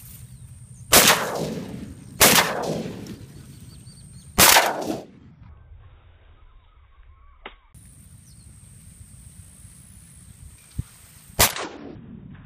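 Four shotgun shots: three in quick succession in the first few seconds, then one more near the end, each with an echoing tail.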